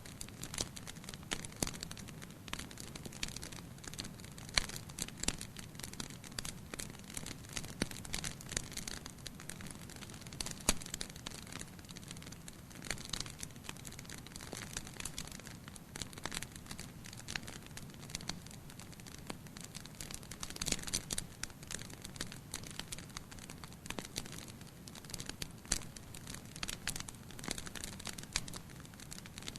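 Campfire crackling: irregular sharp pops and snaps, several a second, over a steady low background noise.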